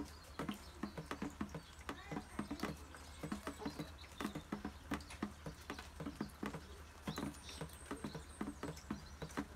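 Small knife peeling the skin of a raw eggplant: a quick, uneven run of short scraping clicks, several a second, over a steady low hum.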